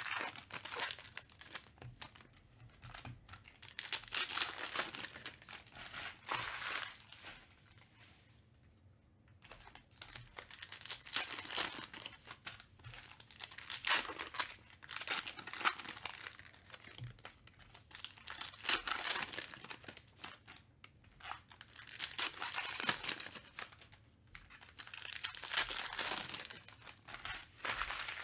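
Foil trading-card pack wrappers being torn open and crinkled by hand, in repeated bouts of crinkling and tearing with short pauses between.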